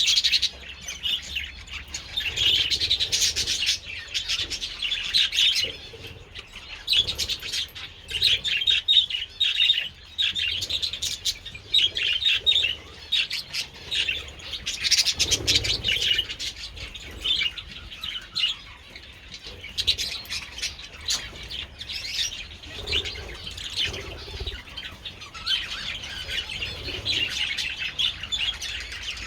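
A colony of budgerigars chirping and chattering together, a dense, continuous mass of high chirps that swells and ebbs.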